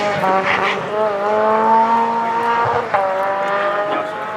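Rally car engine at full throttle, changing up through the gears: its pitch climbs, drops at each shift and climbs again, about three times. A short sharp crack comes at the shift about three seconds in.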